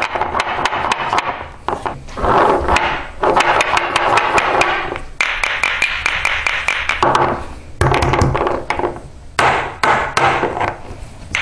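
Glass hourglasses knocked repeatedly against each other and on a wooden tabletop: many sharp taps in quick succession, with scraping noise between them, to shake loose sand that has clumped in the cold.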